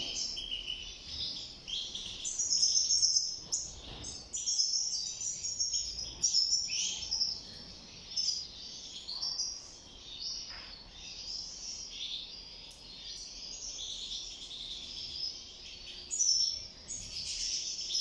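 Aviary finches, goldfinches among them, twittering and chirping in quick, high-pitched phrases without a break.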